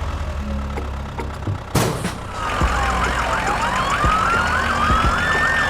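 A low engine hum and a knock, then, about two seconds in, overlapping emergency sirens start: a fast yelp going up and down alongside a slower rising and falling wail.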